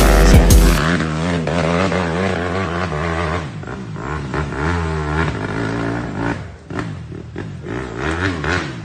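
Kawasaki dirt bike fitted with an Athena big-bore cylinder and a full FMF exhaust, revving up and down repeatedly as it rides off over rough ground. The engine note rises and falls and grows fainter as it moves away.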